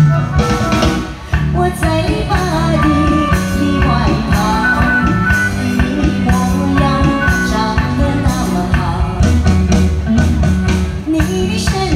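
A woman singing a song live into a microphone, over amplified music with a steady drum beat.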